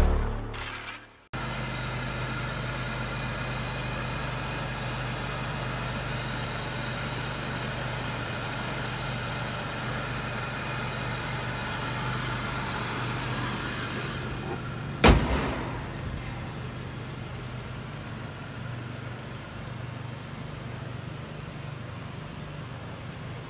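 Chevrolet 3800 Series II V6 engine idling steadily. About fifteen seconds in comes a single sharp knock, after which the idle runs on a little quieter.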